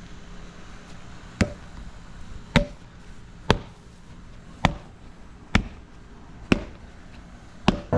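Seven sharp, evenly paced blows struck about once a second, each with a brief ringing tone, as a tool hits stone or metal during stone curb work.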